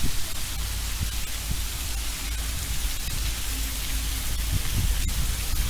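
Steady rain falling, an even hiss that doesn't let up.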